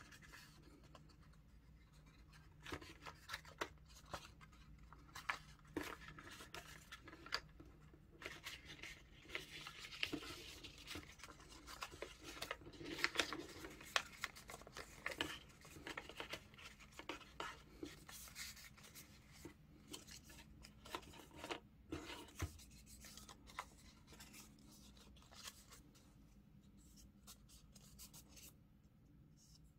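A sheet of A4 paper being folded and creased by hand: faint rustling and crinkling broken by short sharp creasing clicks, busiest in the middle stretch.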